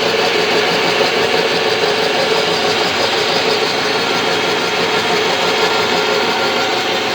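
A machine running steadily: a dense rasping noise with faint steady tones under it.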